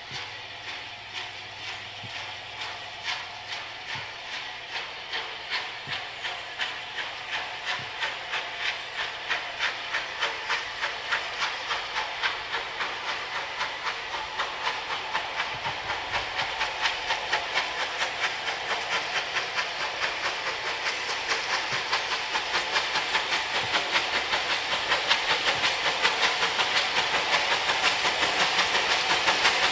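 Bulleid Light Pacific steam locomotive approaching under steam, its exhaust beats over a steady hiss growing steadily louder and a little quicker.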